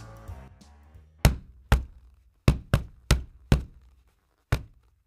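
Seven sharp, unevenly spaced knocks, like blocks clacking down one after another: a logo sound effect timed to animated cubes stacking into place. The tail of fading music is heard in the first second.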